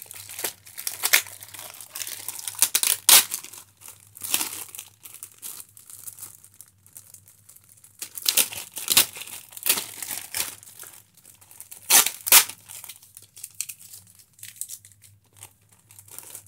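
Thin clear plastic bag around a store-bought pizza crinkling and rustling in irregular bursts as it is handled, with the sharpest, loudest crackles about three seconds in and again about twelve seconds in.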